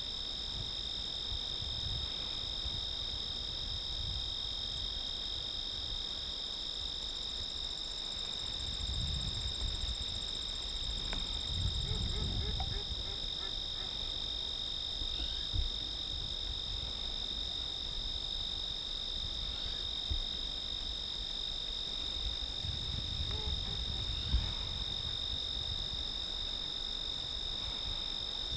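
A steady, unbroken chorus of insects shrilling at two high pitches, like crickets on an evening field, with occasional low rumbles underneath.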